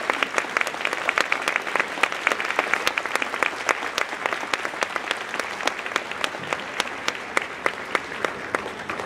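Audience applauding: dense, steady clapping from a large crowd that slowly thins and fades toward the end.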